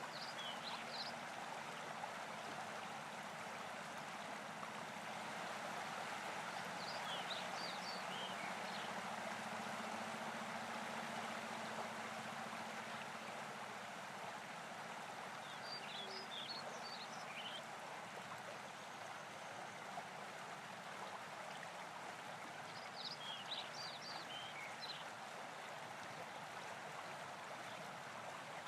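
Steady outdoor rushing hiss like running water, with a faint low hum under it. A few short clusters of high chirps come every seven or eight seconds.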